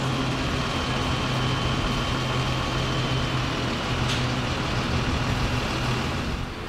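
A mobile crane's diesel engine running steadily as it lowers a load on its hook, a low even hum with a faint high whine above it.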